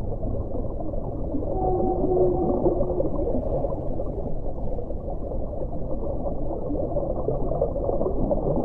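Underwater ocean ambience: a dense, low rumbling wash of water, with a few brief, faint pitched tones about two seconds in.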